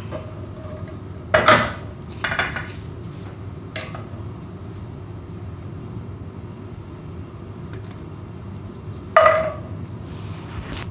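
A metal ladle clinking against cookware a few times while sweet-and-sour sauce is spooned over fried fish, the loudest clink about a second and a half in and another near the end, over a steady low hum.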